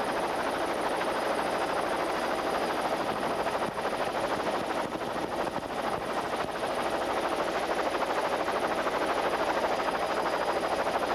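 Helicopter engine and rotor running steadily, heard from aboard the aircraft as a dense din with a fast, even pulsing.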